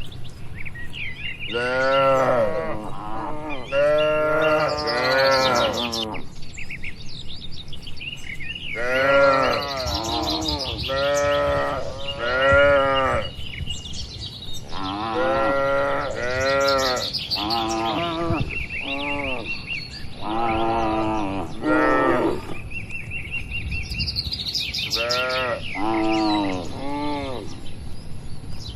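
Cattle mooing over and over, many short calls that rise and fall in pitch, coming in runs with brief pauses between them. Faint bird chirps sound in the background.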